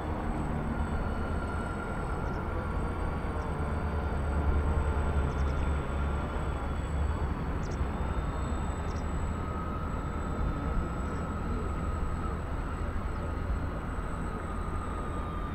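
Large multi-engine RC model of a Hughes H-4 'Spruce Goose' flying past, its propellers giving a thin steady whine that dips slightly in pitch partway through. A heavy low rumble sits beneath it throughout.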